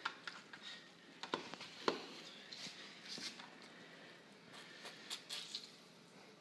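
Faint wet squishing of orange pulp on a manual citrus reamer juicer as orange halves are pressed and squeezed by hand, with scattered small clicks and taps.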